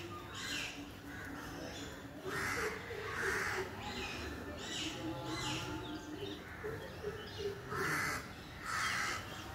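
A bird calling outdoors: two harsh calls about a second apart, then two more near the end.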